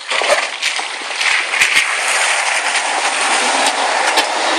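Toyota FJ Cruiser's off-road tyres crunching slowly over loose gravel and rock, a steady gritty grinding with many small stones clicking and popping under the tread.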